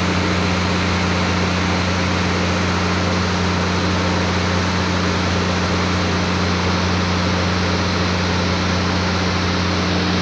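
Steady low hum over an even hiss inside a commuter train car, from the car's air conditioning and running machinery, unchanging throughout.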